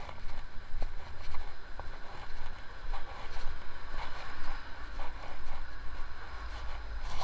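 City street noise heard while walking: a steady hum of traffic with low wind rumble on the action camera's microphone, and a few faint clicks.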